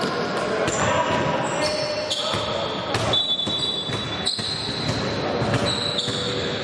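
A basketball bouncing on a hard court during play, with short high squeaks and indistinct voices echoing through the hall.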